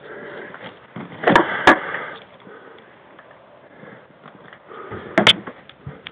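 Rustling and handling noise as a hunter moves through brushy cover. Two sharp clacks come close together about a second and a half in, and another near the end.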